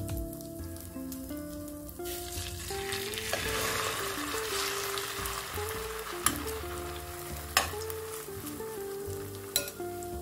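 Egg and pepper batter sizzling as it fries in hot oil in a stainless steel pan; the sizzle grows louder about two seconds in. A few sharp clicks follow as a metal spoon touches the pan.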